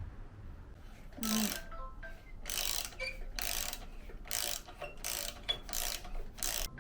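Metal parts being worked on the moped's handlebar and steering stem: about seven short metallic strokes with a faint ring, roughly one every three-quarters of a second.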